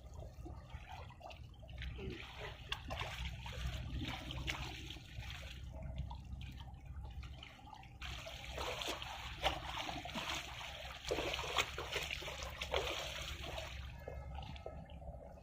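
Ocean waves washing in over a steady low rumble: two surges of hissing, crackling water, one about two seconds in and a louder one from about eight seconds in that fades near the end.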